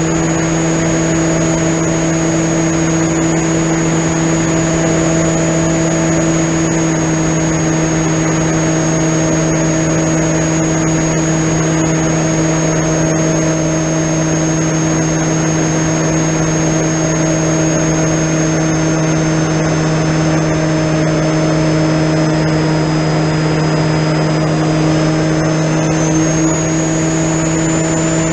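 Onboard audio of an AR900 FPV plane's BrotherHobby 3115 900 kV brushless motor and propeller running at steady cruise throttle, heard as a steady drone over a hiss of rushing air. A thin high whine sags a little in pitch past the middle and climbs back near the end.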